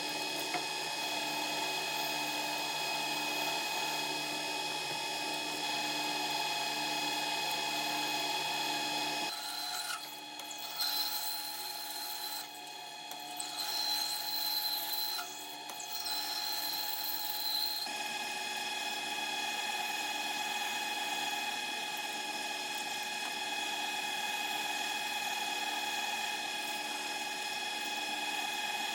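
Machine tool running while it machines a steel spindle blank, a steady whine of several constant tones with a rubbing, cutting noise. The sound changes about 9 seconds in, dips briefly a few times, and returns to its first character about 18 seconds in.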